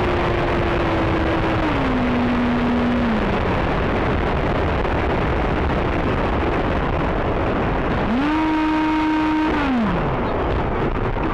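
70 mm electric ducted fan of a foam RC F/A-18 jet whining as the throttle is cut back in steps for a landing, its pitch falling, over a steady rushing noise. Near the end the fan spools up in a short burst, holds, and winds down again.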